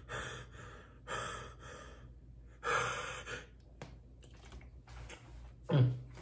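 A man breathing out hard several times between swigs of water from a plastic bottle, with one short voiced gasp near the end.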